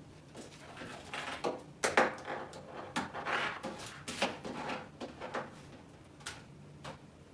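Irregular clicks, knocks and short scrapes of objects being handled on a desk, busiest in the middle and thinning out near the end.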